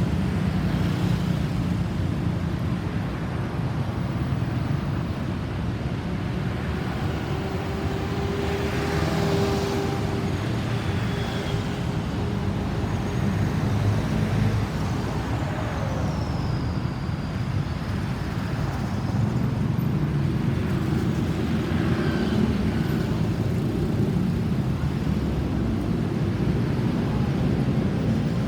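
Steady road traffic noise: engines and tyres of passing vehicles.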